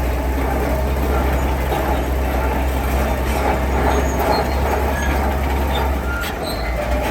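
Heavy diesel construction machine running steadily, a low engine drone under a dense metallic rattle and clatter, with a few faint short squeaks.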